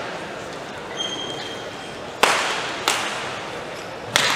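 Badminton rally: rackets striking the shuttlecock, sharp cracks that echo through a large sports hall. There is a softer hit about a second in, then three loud hits, the last near the end. A short high squeak comes about a second in.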